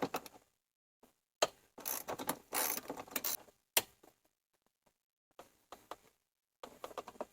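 Irregular metallic clicking and rattling of hand tools and bolts, heard in short bursts with quiet gaps between, as golf cart roof strut bolts are worked loose.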